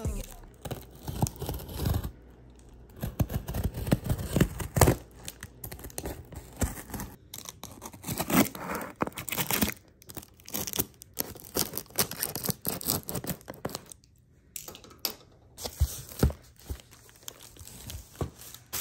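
Parcel packaging being torn open and crinkled by hand: irregular rustling, tearing and clicking in uneven bursts, with a short pause a little past the middle.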